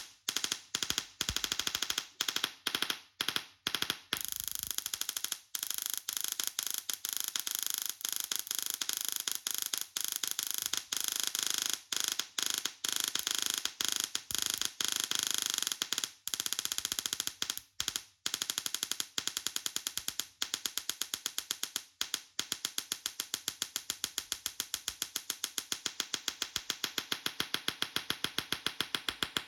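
Tesla coil spark discharge buzzing in bursts that start and cut off abruptly. From about 19 seconds in it settles into a fast, even pulsing.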